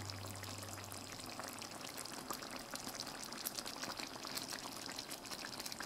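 Thick chicken kofta curry simmering in its pan: faint, steady bubbling of the gravy with many small pops and crackles.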